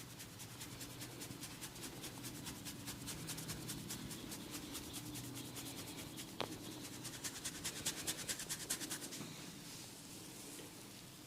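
A barber's hands rubbing and scratching in a fast run of short, raspy strokes during a massage, with one sharp click about six seconds in.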